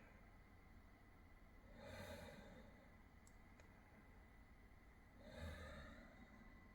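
A man snoring on a recording from around 1911: two slow, drawn-out snores about three and a half seconds apart, faint under a steady hiss.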